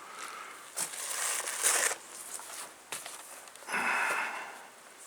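Rustling and scraping of a camera being handled and held close against clothing, right at the microphone, in irregular bursts, the longest about four seconds in.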